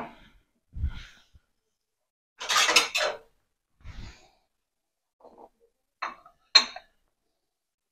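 Dishes handled on a stone kitchen counter: a glass mixing bowl and a ceramic plate. A dull thud, a longer clattering scrape, another soft thud, then two sharp clinks about half a second apart near the end as the plate is set down.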